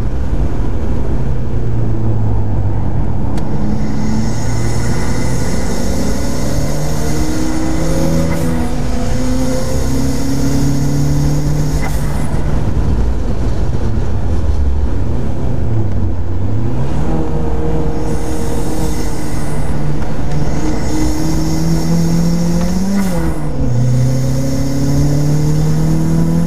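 Turbocharged Mazda MX-5 four-cylinder engine at track pace, heard from inside the open cockpit. Its note climbs in steps through the gears, drops when the driver lifts, and gives a quick rev blip near the end.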